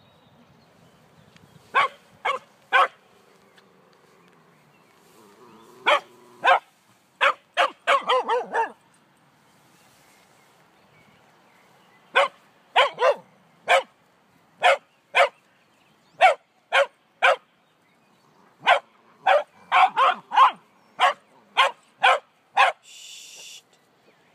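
Dogs barking in short, sharp yaps during tug-of-war play over a stick, in quick runs of two to six with pauses between. A brief hiss near the end.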